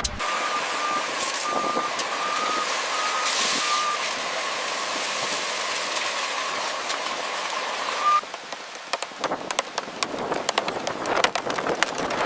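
Heavy construction vehicle running with a high, intermittent reversing alarm beeping over it for about eight seconds. It cuts off abruptly into a run of clattering knocks and clicks.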